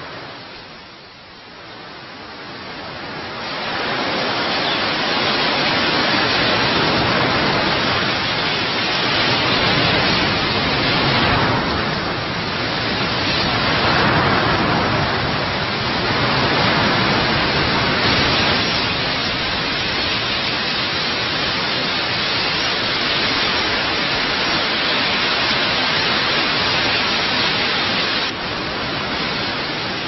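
The wings of a vast flock of red-billed queleas, a dense steady rushing noise, like a waterfall. It swells up over the first few seconds, then holds.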